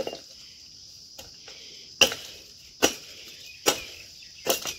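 A large hand blade chopping side branches off a cut bamboo pole: about five sharp strikes at uneven intervals, the last two close together. A steady high insect buzz runs underneath.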